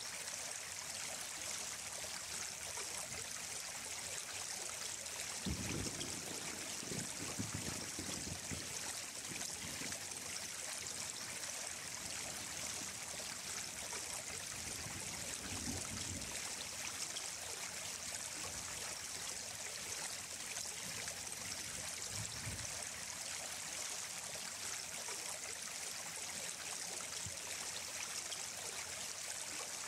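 Running stream water, a steady rushing and trickling hiss. A few brief low rumbles rise under it about six seconds in, around sixteen seconds and around twenty-two seconds.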